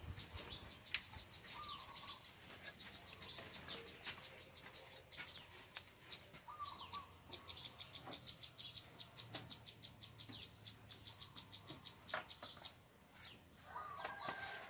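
Faint birdsong: many short, quick falling chirps from small birds, repeated throughout, with a few brief clucking calls from chickens.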